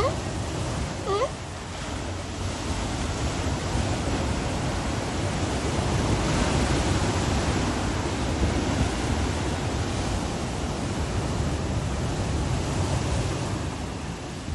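Ocean surf breaking and washing over a rocky shore: a steady rush of waves that swells a little midway. Near the start come two short wailing calls from sea lions hauled out on the rocks.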